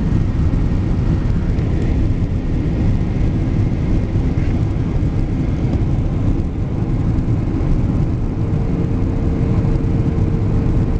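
Steady low rumble of engine and airflow noise inside the cabin of a Boeing 777 airliner descending on approach. A faint steady hum joins about eight seconds in.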